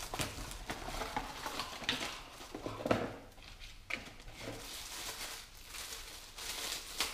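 Unpacking by hand: a small cardboard box opened and a part in a clear plastic bag pulled out and handled, with irregular rustling, crinkling and small knocks, the crinkling densest near the end.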